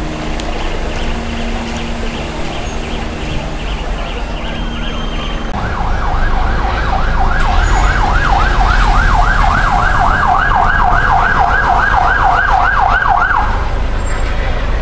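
Emergency-vehicle siren in a fast yelp, sweeping up and down about three times a second; it starts a little over five seconds in and stops about a second before the end. A low steady drone of street and vehicle noise lies under it.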